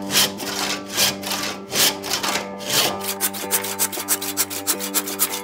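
Handsaw cutting through the wooden stub of a broken axe handle, cutting it off flush with the axe head. Long, slower strokes at first, then quicker, shorter strokes, about five a second, from a little past halfway.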